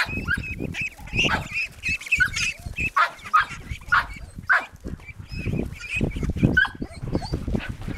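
A flock of young ducks calling over and over in short, rapid calls while a dog herds them, over low thumps and rustling.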